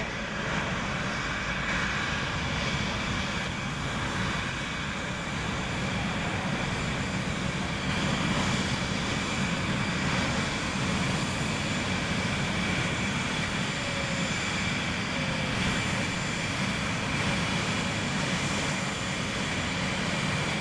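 Boeing 737 jet engines running steadily at low power with a constant whine, as the airliner taxis onto and lines up on the runway.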